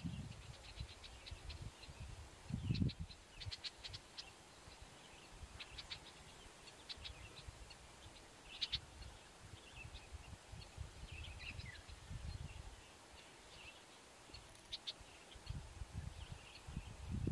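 Small birds chirping faintly and off and on, in short high notes and quick runs, with one falling call near the middle. A few low rumbles come and go, the loudest about three seconds in.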